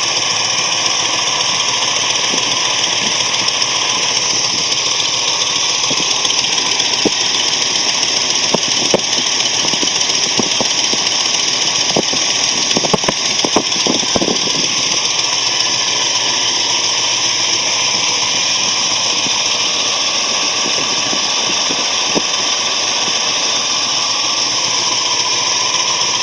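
Ford 390 V8 engine running with a knock: a steady mechanical running noise with sharp knocks scattered through it, most frequent about halfway through.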